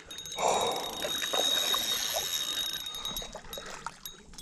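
Fishing reel working with light mechanical clicking and whirring while a hooked fish is played in.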